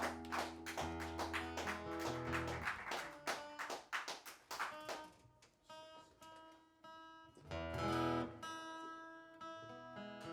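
Acoustic guitar strummed quickly for about five seconds, then sparser chords and single notes left to ring, with a louder chord struck about eight seconds in.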